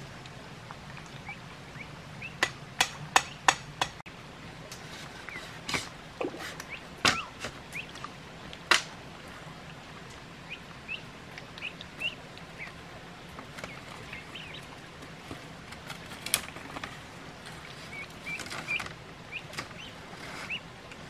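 Hard knocks of bamboo being handled and tapped into place: a quick run of four sharp knocks a couple of seconds in, then scattered single knocks. Short faint bird chirps come in between.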